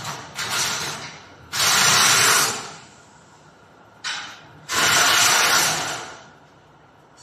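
Plastic moulding machinery giving off loud bursts of hissing, four in all, each half a second to a second and a half long, with quieter gaps between.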